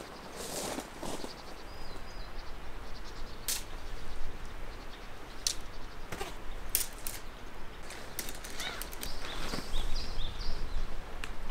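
Nylon tent fabric rustling and flapping as it is pulled and spread out, with footsteps on gravel and several sharp clicks. Birds chirp faintly in the background.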